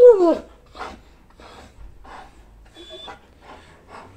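A German Shepherd dog's whine falling away in the first half second, followed by its quick, soft panting breaths, about two a second, close to the microphone.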